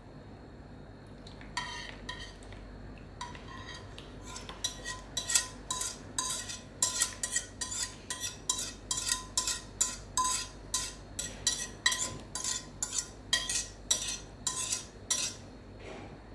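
Wire whisk scraping and tapping against the inside of a pot, about two strokes a second, each with a brief ring from the pot, as the last of the egg pudding mixture is scraped out into a plastic container. The strokes begin about a second and a half in and come steadily from about three seconds in.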